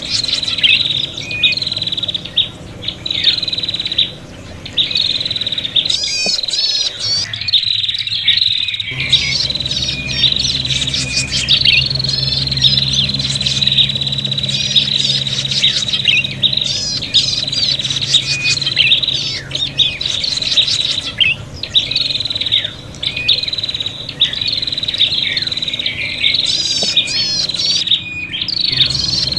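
Prinias (prenjak) calling in an agitated, squabbling chorus: a dense stream of sharp high chirps with long, thin, slightly falling high notes held between them.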